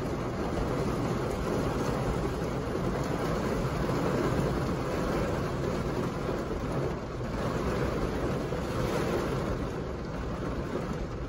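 Heavy rain pelting a car's roof and windshield, a steady dense noise heard from inside the cabin.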